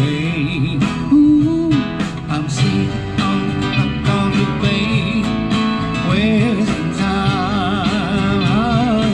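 A man singing live with his own strummed acoustic guitar, amplified through a small PA. His voice carries wavering, held notes, a long one about a second in, over a steady strumming rhythm.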